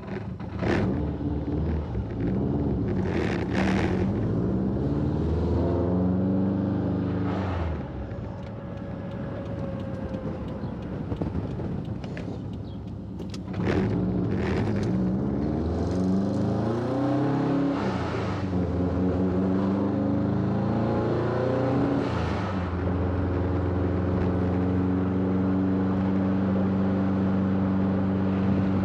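Subaru STI's turbocharged flat-four engine, tuned to about 420 hp, accelerating through the gears. The engine note rises and drops back at each shift several times, then holds steady at a cruise near the end.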